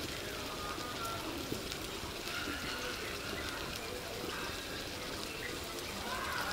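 Chicken cooking in oil and spice paste in an aluminium karahi over a fire: a steady, quiet sizzling hiss.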